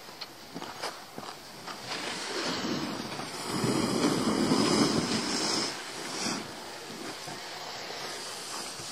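Skis sliding and scraping over packed snow, a steady rushing that grows louder for about two seconds in the middle.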